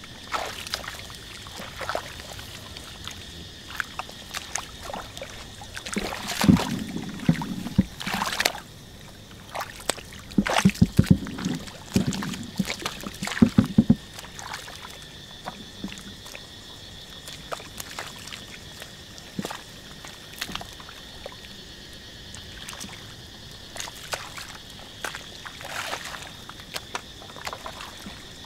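Hands digging and scooping through wet mud and shallow water, with short squelches and scrapes throughout and louder bursts of sloshing and splashing in the middle, over a faint steady high hum.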